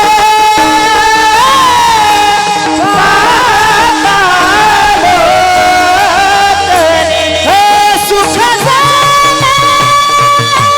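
Devotional singing: a solo voice holding long, ornamented notes that slide and waver between pitches, over a steady instrumental accompaniment.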